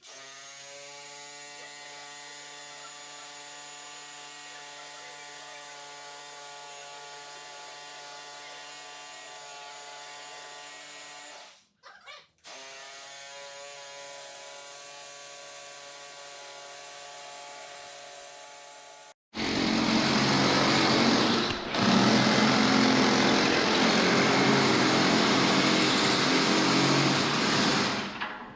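A steady, even-pitched machine hum with a short break partway through, then a much louder, harsher power tool running for about nine seconds near the end.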